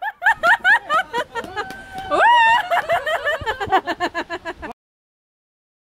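Excited men's voices whooping and laughing in quick rising yelps and short bursts, with one held note near the middle, cutting off abruptly about four and a half seconds in.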